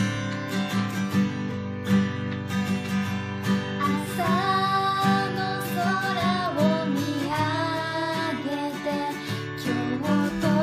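Acoustic guitar strummed in a steady rhythm, with a young woman's voice coming in about four seconds in to sing the verse melody over it.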